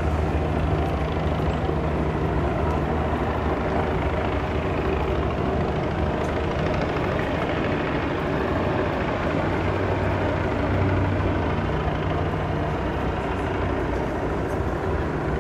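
Steady city ambience dominated by a constant low engine hum from motor vehicles, holding even without letting up.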